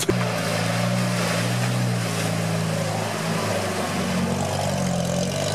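UAZ off-roader's engine working under load as it ploughs through deep mud and water, its pitch wavering up and down, over a steady wash of churned water and mud.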